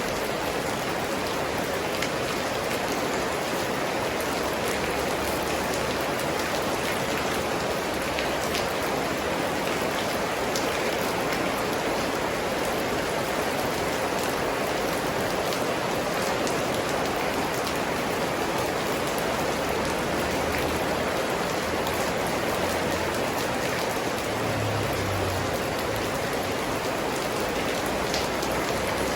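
Steady rain falling, a dense even hiss with scattered drops pattering on surfaces.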